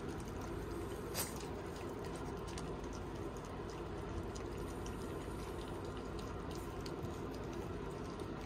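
Several black Shiba Inu puppies eating kibble together from one plate: a steady run of small chewing clicks and crunches, with one sharper click about a second in.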